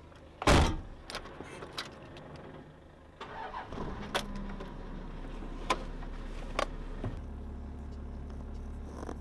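A sharp thump about half a second in, then a car engine is started about three seconds in and settles into idling, with scattered clicks. The low idle grows louder and steadier near seven seconds.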